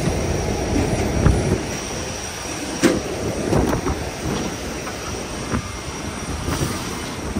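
Cabin noise inside an Airbus A350-900 arriving at the stand after landing: a steady rumble and hum of the aircraft, with a few sharp clicks and knocks, the loudest about three seconds in.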